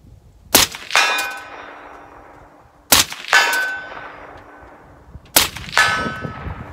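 Three rifle shots from a 7.62x39 AR-15, about two and a half seconds apart. Each is answered a moment later by a ringing clang, typical of a steel target being hit, that fades away. The rounds fire rather than misfire: the enhanced firing pin is setting off the hard primers even with a light-hammered Jewell trigger.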